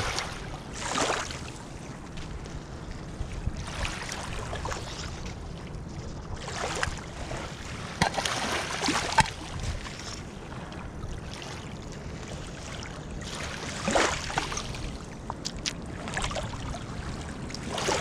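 Small waves washing at the water's edge, swelling and falling every couple of seconds, with boots crunching and clicking over wet gravel and stones, under a steady low rumble of wind on the microphone.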